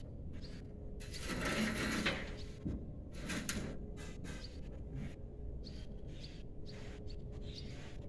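Outdoor ambience: a steady low rumble with scattered short, high chirps, and a brief scraping rush between about one and two seconds in.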